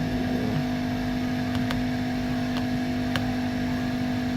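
A steady mechanical hum with several fixed tones, like a motor or fan running, and a couple of faint clicks.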